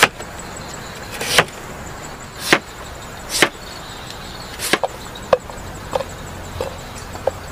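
Knife chopping a young banana stem against a bamboo slat: about five sharp chops roughly a second apart, then four lighter cuts.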